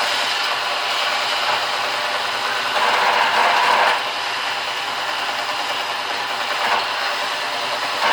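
Belt sander running, with a rubber boot sole rubbed against the moving sanding belt to clean out the pitch and sap clogging it. The rubbing gets louder for about a second, around three seconds in.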